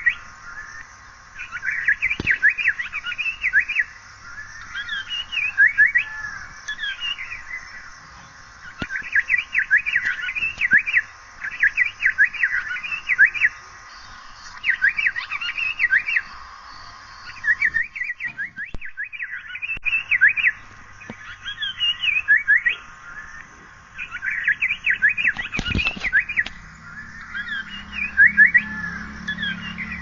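Asian paradise flycatcher calling: rapid strings of short, sharp notes in phrases a second or two long, repeated every couple of seconds with short pauses between.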